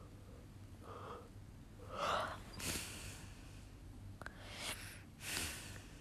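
A sleeping woman breathing heavily through her open mouth, with a loud gasping intake about two seconds in and three more noisy breaths after it.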